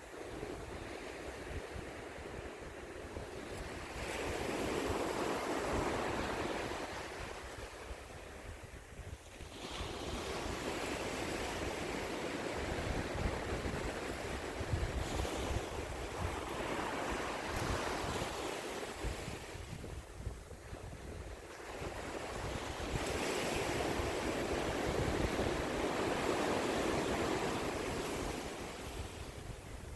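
Sea waves breaking and washing up the shore, the surf swelling and falling back in three long surges.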